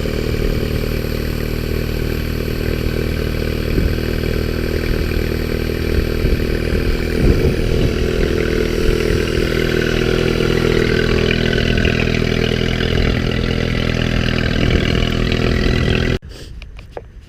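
1993 Yamaha 9.9 hp four-stroke outboard running steadily after a head gasket replacement, then shut off abruptly near the end.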